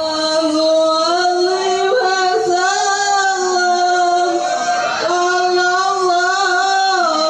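A solo voice singing slow, long drawn-out notes that bend and waver.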